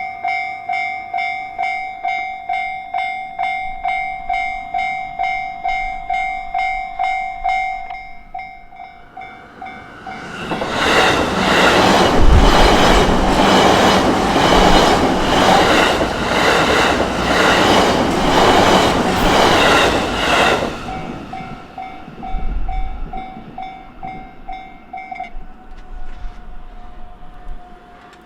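Japanese railway level-crossing warning bell ringing in steady pulses about twice a second. A JR Takasaki Line train then passes loudly for about ten seconds, its wheels clacking evenly over the rail joints. The bell comes back more faintly after the train and stops a few seconds before the end.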